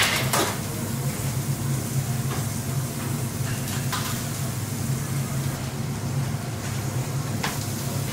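Whole chickens sizzling on a hot grill as marinade is brushed on, with short hissing flare-ups every few seconds over a steady low hum.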